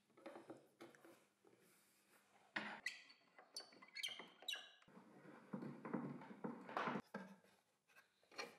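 Faint handling sounds at a router table: light clicks, then a quick run of sharp metallic clinks a few seconds in, followed by a longer scraping rustle. The insert ring is being set around the bit and the router is being handled in its mount beneath the table.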